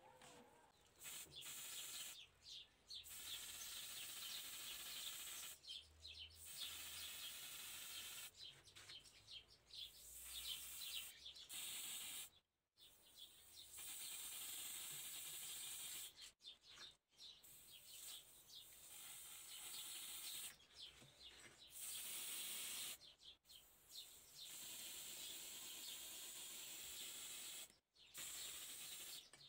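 Faint spray paint hissing in about ten separate bursts of one to four seconds each, with short breaks between, as a small model car body is sprayed.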